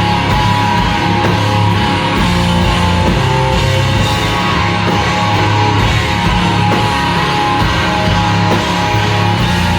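Rock band playing live, loud: electric guitars and drums.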